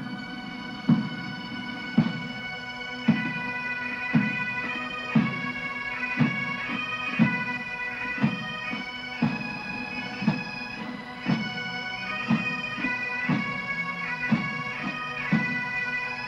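Pipe band playing a slow march: bagpipes sounding a melody over their steady drone, with a bass drum beating about once a second.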